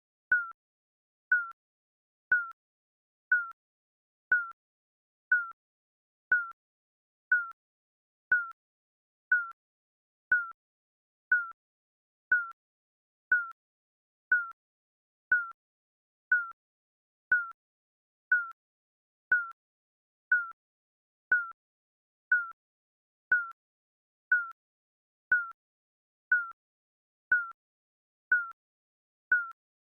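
Digital countdown timer beeping: a short, high electronic beep once every second, each the same, with silence between.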